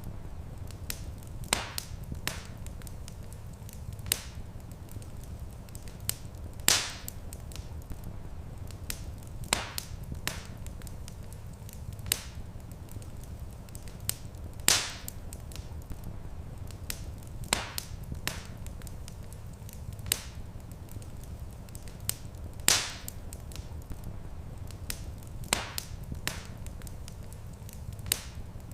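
Wood fire crackling: irregular sharp pops and snaps over a steady low rumble, with a few louder pops about every eight seconds.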